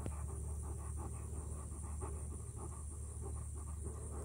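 Alaskan Malamute panting in quick, even breaths.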